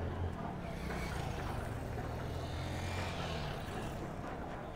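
A motor vehicle's engine running with a steady low hum. Its noise swells about midway, and the hum eases off shortly after.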